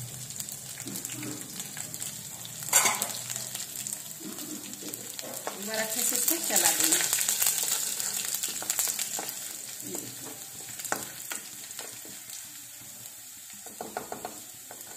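Chopped garlic, curry leaves and cumin seeds sizzling in hot oil in a kadhai, stirred with a wooden spatula that scrapes and taps the pan. There is a sharp knock about three seconds in, and the sizzle and stirring are loudest around the middle.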